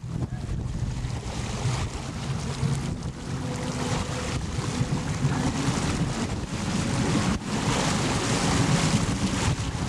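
Motorboat engine running steadily under way, with wind buffeting the microphone and water rushing and slapping past the boat.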